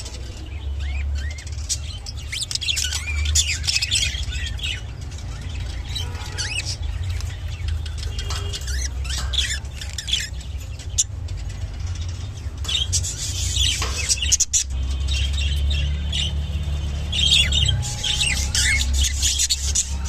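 Lutino budgerigars chattering and warbling, a running mix of short chirps and squawks, over a steady low hum.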